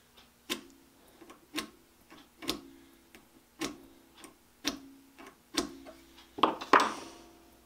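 Hardened steel scriber drawn across the dye-coated end of a steel axle against a steel rule, marking out the flats: each stroke a sharp scratchy click with a short metallic ring, about once a second, then two longer, louder scrapes near the end.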